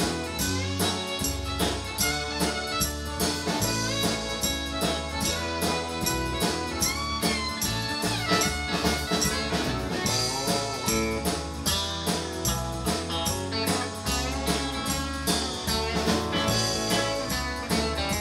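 Live country band playing an instrumental break: a fiddle solo with sliding notes over strummed guitar, bass and a steady drum beat.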